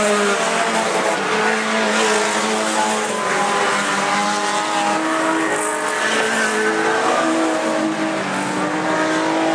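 A pack of old race cars' engines running and revving together on a dirt track, several overlapping pitches rising and falling as they speed up and lift off.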